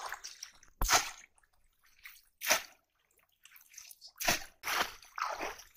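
Several short splashes and drips of water in a mesh net bag holding a live caught fish, coming as separate bursts with quiet gaps between them.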